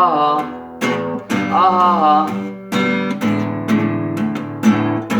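Song music with steady strummed chords; a voice holds two wavering sung notes in the first two seconds or so.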